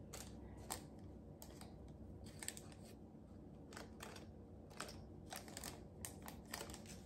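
Faint, irregular small clicks and light rustles of tiny jewelry pieces and their packaging being handled by fingers.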